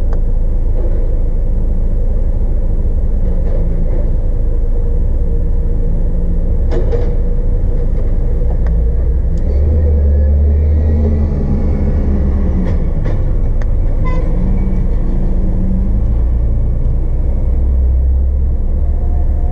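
DAF XF 106 truck's diesel engine idling, a steady low rumble heard inside the cab, with a few light clicks in the middle.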